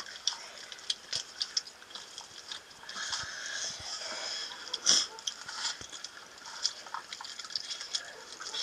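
Children eating rice with their fingers from metal plates: chewing and mouth noises with many small scattered clicks and scrapes, one louder click about five seconds in.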